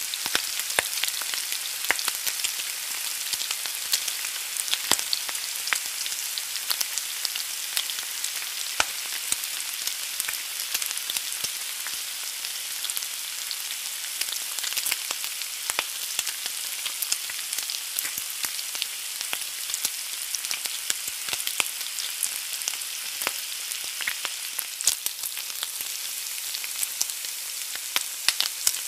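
An egg frying in a cast-iron skillet: a steady sizzle with frequent small pops and crackles.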